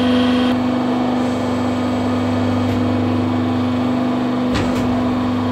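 Hydraulic press's electric motor and pump running with a steady hum as the ram presses down on an aluminium motorcycle engine crankcase. There is a faint click about a second before the end.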